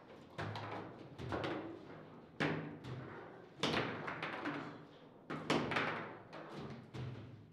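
Table football play: the ball being struck by the rod-mounted figures and rods knocking against the table. It comes as an irregular string of sharp knocks, about one a second, each ringing briefly.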